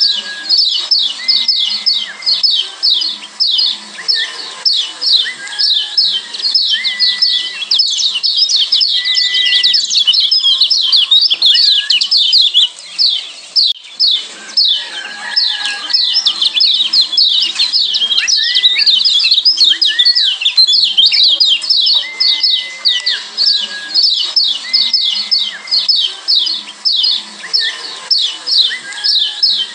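Kecial kuning, the yellow white-eye of Lombok (Zosterops), giving its 'ciak' calls: a fast, unbroken run of short, high chirps. A short, lower, level whistle cuts in every couple of seconds.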